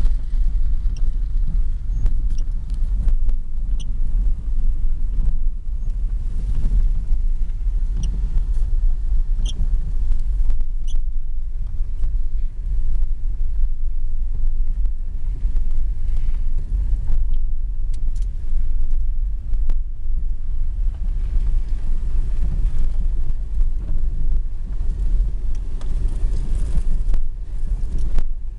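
Steady low rumble of a car and its tyres on a wet road, heard from inside the cabin, with a few faint ticks of rain on the windscreen.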